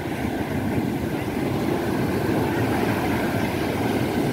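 Ocean surf: waves breaking and washing up a sandy beach in a steady rushing noise that swells slightly over the first second.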